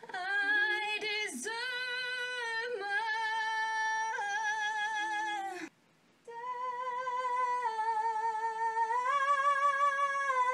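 A voice singing long, high held notes with vibrato in two phrases, with a short breath break in the middle. The second phrase steps up in pitch partway through.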